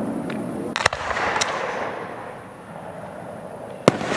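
Aerial fireworks bursting: two close bangs about a second in, a lighter one just after, and a sharp, loudest bang near the end. A rumble dies away between them.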